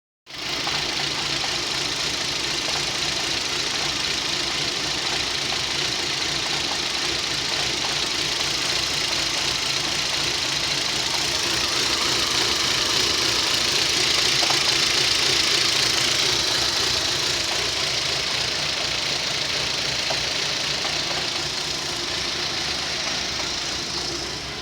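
Rover 25's 1.4-litre K-series four-cylinder petrol engine idling roughly, a steady running noise that swells slightly about halfway through. The rough idle is a fault the owner later traced to a faulty lambda (O2) sensor.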